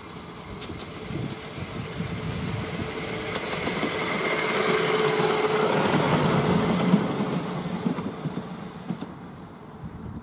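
A miniature railway train passing by, its running noise swelling over a few seconds, peaking around the middle and fading away near the end.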